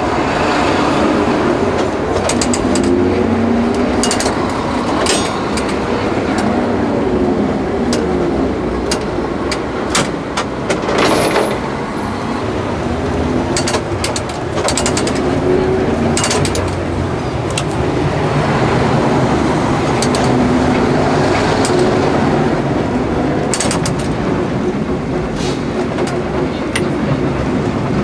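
Vintage tram running on street track, heard from its cab: the traction motors and gears hum and whine, their pitch wandering up and down with speed, over steady running noise. Irregular sharp clicks and knocks come from the wheels crossing rail joints and points.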